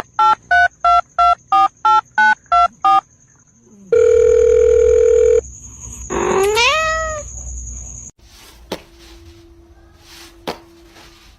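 A quick run of about eleven short electronic beeps like phone keypad tones, then a steady beep lasting about a second and a half. After that comes one rising cat meow and a couple of faint clicks.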